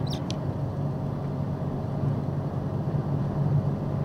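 Steady road and engine noise inside the cab of a vehicle cruising at highway speed, about 70 mph, with a low steady hum. A few short clicks just after the start.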